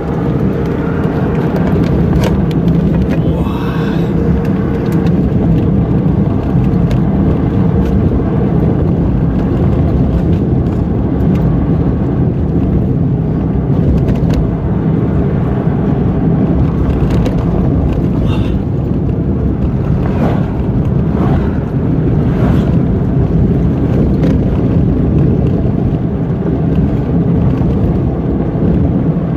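Steady low rumble of a moving car: road and engine noise.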